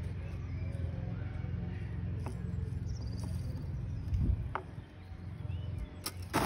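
Outdoor park ambience: a steady low wind rumble on the microphone, with faint bird chirps and a few soft knocks from the wooden rungs of a rope climbing ladder as it is climbed.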